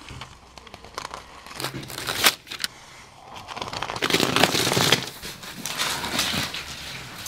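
Vapour control membrane and SIGA Fentrim airtight tape crinkling and rustling as the tape is pressed and rubbed down by hand onto the block wall. There are a few sharp crackles about two seconds in, and a louder, steady rustle of rubbing from about four seconds on.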